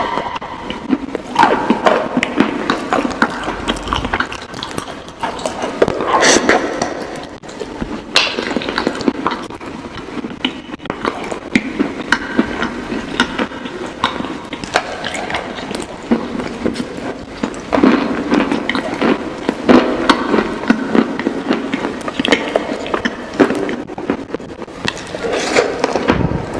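Close-miked eating of chicken wings: continual crunching and chewing, with many sharp crackles and clicks.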